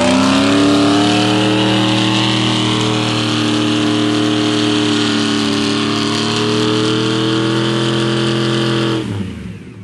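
Off-road vehicle engine revved hard and held at high rpm for about nine seconds, its pitch creeping up slightly, then let off near the end.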